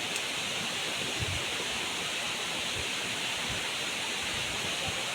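Waterfall rushing: a steady, even roar of falling water, with a few short low bumps.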